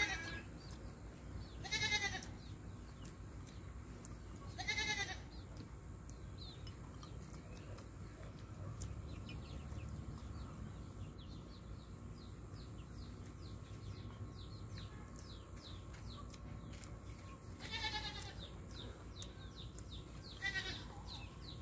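Short, quavering animal bleats: three in the first five seconds, then a long gap, then two more near the end, over a faint background of small high chirps.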